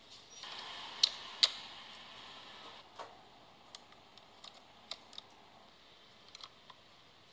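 Small sharp plastic clicks from handling a USB receiver, a plug adapter at a wall socket and a wireless mouse. Two louder clicks come about a second in, over a short hiss, followed by scattered fainter clicks.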